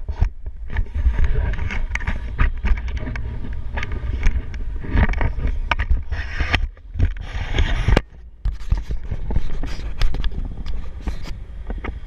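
Airflow of a paraglider in flight buffeting the camera microphone: a loud, uneven low rumble with frequent knocks and scrapes. It eases briefly about eight seconds in.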